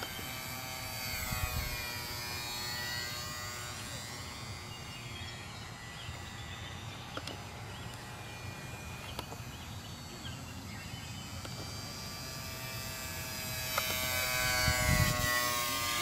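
High whine of a Nine Eagles 778B micro RC plane's 8 mm electric motor and propeller in flight, its pitch rising and falling as the plane turns and passes. It is loudest in a low, close pass near the end.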